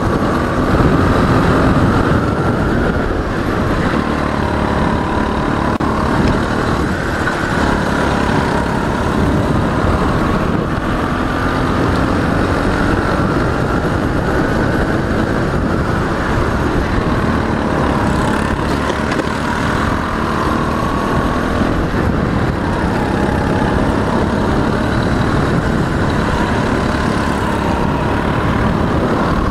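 Racing kart engine running hard, its pitch rising and falling over and over as the kart accelerates down the straights and lifts for corners.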